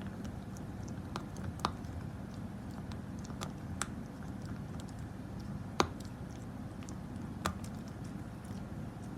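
A handful of sharp clicks or crunches at irregular intervals over a steady low hum; the loudest comes about six seconds in.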